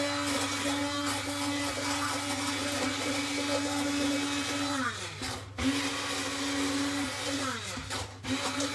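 Electric hand blender puréeing a red pepper dip in a saucepan: a steady motor whine that winds down in pitch twice, about five and eight seconds in, and starts up again each time.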